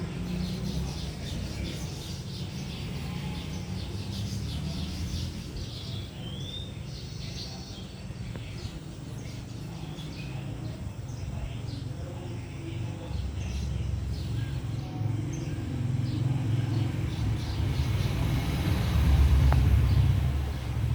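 Outdoor ambience: small birds chirping over a low rumble of road traffic. The rumble swells in the last several seconds, loudest shortly before the end.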